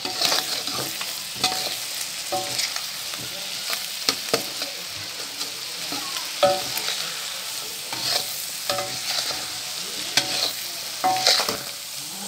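A metal spatula scraping and clinking against a wok, in irregular strokes, some ringing briefly, as scrambled eggs and sausage are stirred. Under it runs a steady sizzle of the food frying in oil.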